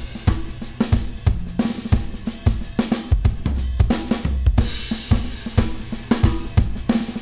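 Recorded drum kit playing a steady groove of kick, snare, hi-hat and cymbals, run through a 5020 stereo FET limiter on the drum bus that is compressing it to bring up low end, sustain and heft.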